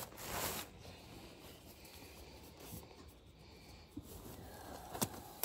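Disposable absorbent pad rustling and crinkling as hands spread it out, loudest in the first half second, then softer handling noise, with one sharp click near the end.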